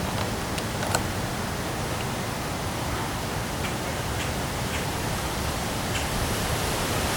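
Steady rush of heavy rain and wind, with a few sharp ticks of drops striking, mostly in the first second.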